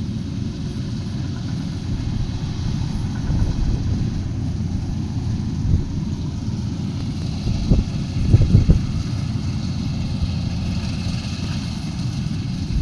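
Engine of a Kubota combine harvester running steadily, with a few short knocks a little past the middle.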